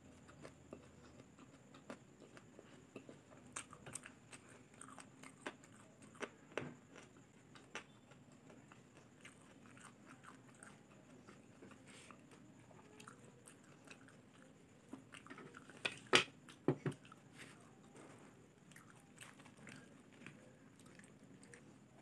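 Close-up eating sounds of chewing chicken adobo and napa cabbage: soft wet mouth clicks and smacks, with a louder cluster of sharp crunchy clicks about sixteen seconds in.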